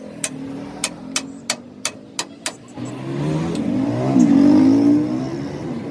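Sharp taps about three a second for the first few seconds, then a vehicle engine comes in and revs, rising in pitch and falling back; the engine is the loudest sound.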